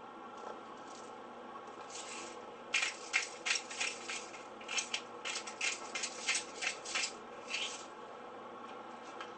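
Himalayan rock salt grinder being twisted, grinding salt crystals in a quick run of short grinding strokes, about three or four a second, starting about three seconds in and lasting about five seconds.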